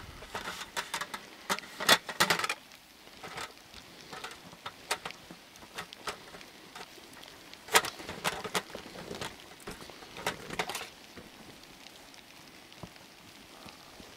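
Irregular clicks, knocks and clatter of camp gear being handled, loudest about two seconds in and again near eight seconds, then thinning out near the end.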